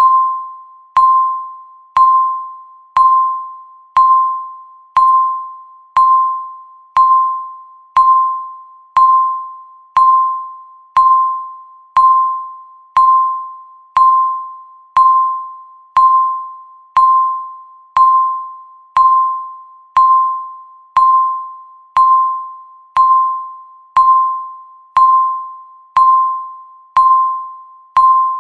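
Countdown timer's per-second tick: a short electronic beep once every second, each starting sharply and ringing away before the next.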